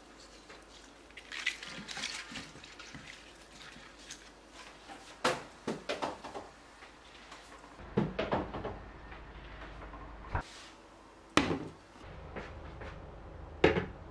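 Kitchen handling around a stainless steel pot: a series of sharp knocks and clatters as ingredients go in, water poured into the pot, and a metal clink as the lid is set on near the end.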